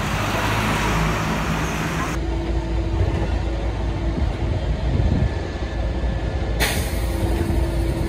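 Street traffic with a bus driving past, then a concrete mixer truck's diesel engine running steadily as a low rumble with a hum while its drum turns.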